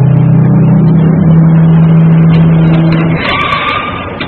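Diesel engine of a barge-mounted crane running hard as it hoists a clamshell grab bucket, holding a steady high pitch, then dropping off about three seconds in, when a thinner, higher whine takes over.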